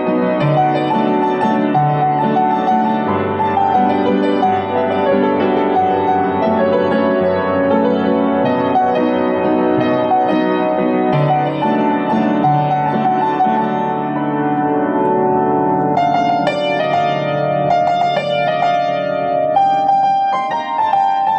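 Piano music: dense, held chords that give way to clearly separate struck notes in the last five seconds.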